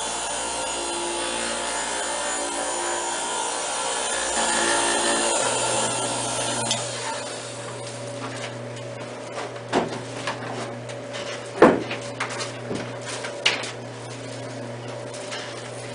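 A small motorised device runs with a steady buzz and stops about six or seven seconds in. A quieter steady hum remains, with a few sharp clicks or cracks, the loudest about eleven and a half seconds in.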